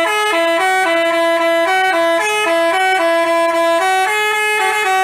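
Telolet basuri musical horn playing a quick tune of short notes that step up and down between a few pitches.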